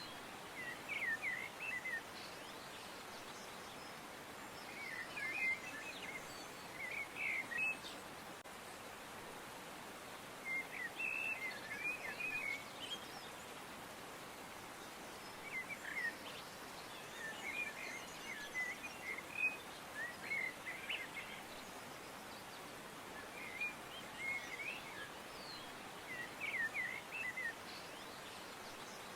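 Songbirds chirping in short clusters of quick, high chirps every few seconds, over a steady background hiss.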